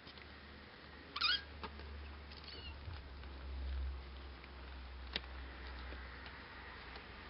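Nearly three-week-old Bengal and Cashmere kittens mewing: one high, wavering mew about a second in, the loudest sound, and a fainter one a second later. A low steady hum lies underneath, with a single click a little after five seconds.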